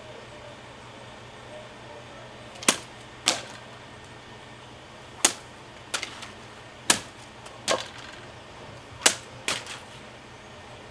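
Shashka sabre blade slicing through a rolled straw-mat target: about eight sharp, brief cutting strikes, several coming in quick pairs.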